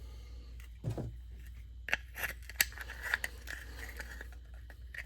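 Scattered light clicks and knocks of a plastic transponder casing being handled and pulled apart by hand, with a faint scrape between them; the multi-tool is not running.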